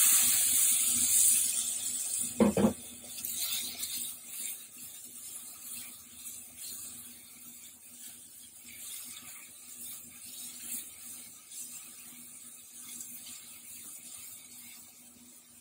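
Diced tomato hitting hot oil and fried onions in a frying pan: a loud sizzle that starts at once and slowly dies down to a softer frying hiss as it is stirred with a spatula. A couple of knocks about two and a half seconds in.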